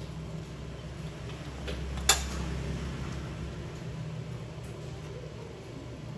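Steady low hum of an electric fan, with one sharp click about two seconds in and a few faint ticks.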